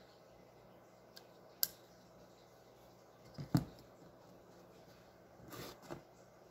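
Handling noise of a plastic handheld microphone and its cables on a cardboard box: a sharp click, then a knock about halfway through as the microphone is set down on the cardboard, then a brief rustle as a coiled cable is picked up.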